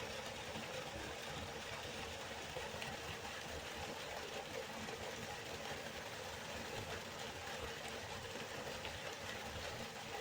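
Waterfall: water falling and rushing in a steady, unbroken noise.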